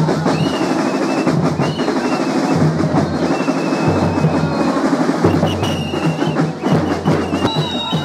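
Carnival drum band playing, snare and bass drums in a dense, fast beat.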